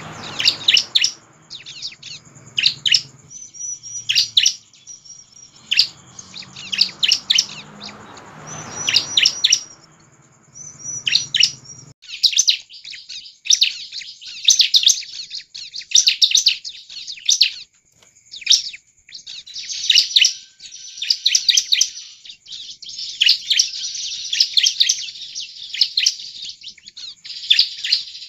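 Bar-winged prinia (ciblek) singing: rapid bursts of sharp, high chirps and trills, repeated almost without pause in the second half. A low background rumble is under the song until about twelve seconds in.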